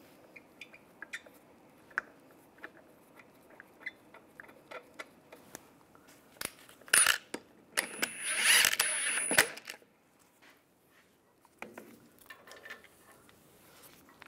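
Lug bolts being threaded in by hand with small metallic clicks, then a cordless impact wrench runs on a lug bolt: a short burst about seven seconds in, then about a second and a half of hammering with a high whine as it snugs the bolt down.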